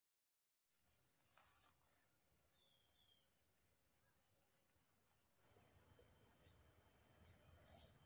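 Near silence with a faint, steady, high-pitched insect drone and two short, faint bird chirps about three seconds in.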